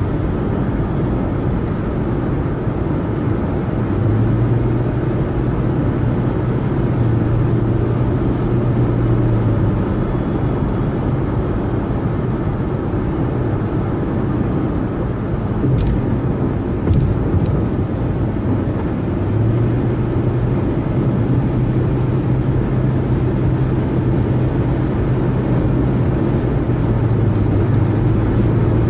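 A car driving at freeway speed: steady road and tyre noise, with a low hum that comes in and fades twice and a couple of brief knocks about halfway through.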